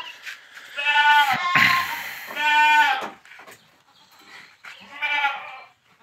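Boer goats bleating during mating: three bleats, two long ones about a second and two and a half seconds in and a shorter one near the end, with a short breathy rasp between the first two.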